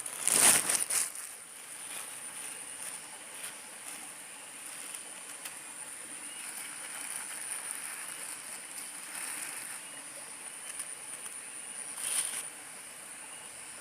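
Outdoor ambience at a fishing spot: a steady high-pitched whine over faint background noise, broken by a short, loud noisy burst about half a second in and a smaller one near the end.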